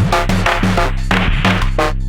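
Electronic drum pattern from the Elastic Drums iPad drum-synth app playing a preset: quick, repeating synthesized hits over a steady deep bass drone, with pitched synth stabs.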